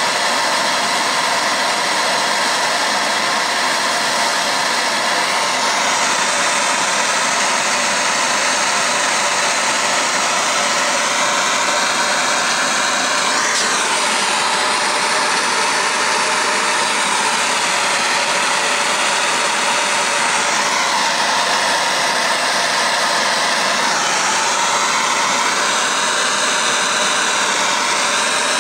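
Propane torch flame hissing steadily as it heats a copper pipe joint for soldering, its tone shifting several times.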